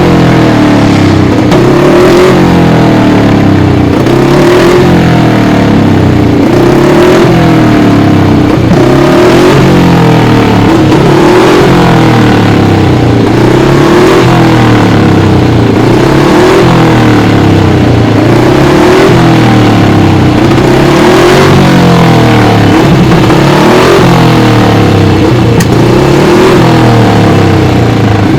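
1956 Moto Guzzi 350 Bialbero racing motorcycle's single-cylinder twin-cam engine running loud, revved up and down over and over, about every second or two.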